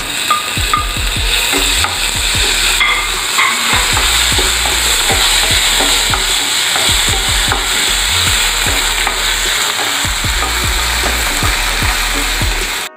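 Chopped onion, green chilli, curry leaves, garlic and ginger sizzling in hot oil in a pan, with a spoon stirring and scraping against the pan in many short clicks. The sound cuts out briefly near the end.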